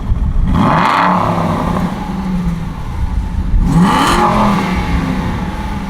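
Aston Martin V8 Vantage's 4.3-litre V8 engine revved twice, the pitch rising sharply each time and then falling back to a steady run.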